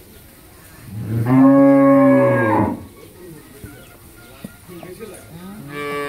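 Cattle mooing: one long, loud moo lasting nearly two seconds, then a second moo starting near the end.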